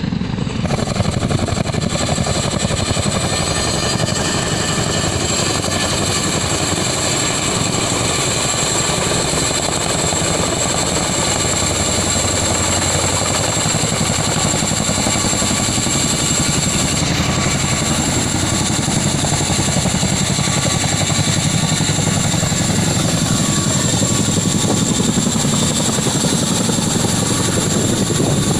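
Tandem-rotor Chinook-type helicopter approaching and descending to a low hover, loud and steady, with a rapid rotor beat and a steady high turbine whine.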